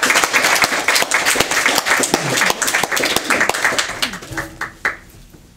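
Small audience applauding, dying away near the end.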